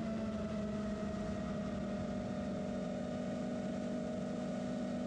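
FPV quadcopter's brushless motors and propellers humming at a steady throttle, heard through the onboard camera, the pitch sagging slightly lower.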